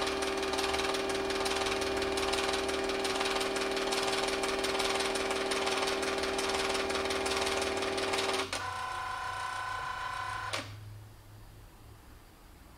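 Nikon Super Coolscan 5000 ED film scanner with its SF-210 slide autofeeder, its motor mechanism running with a steady whirring hum while working through a slide. About eight and a half seconds in, the sound changes to a higher, thinner whine, which stops about two seconds later.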